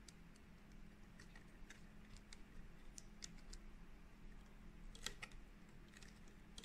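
Faint, scattered small clicks and ticks of a flat ribbon printhead cable being handled and pushed into its connector on a printer's carriage circuit board, with a cluster of clicks about five seconds in, over a low steady hum.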